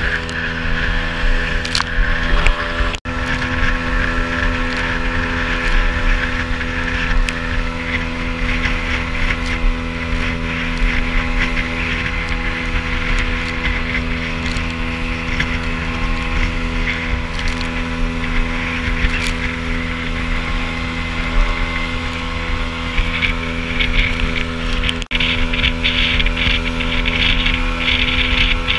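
Outboard motor of a small open fishing boat running steadily at speed as the hull planes through choppy water, with the hiss of spray and wind on the microphone. The sound drops out for an instant twice.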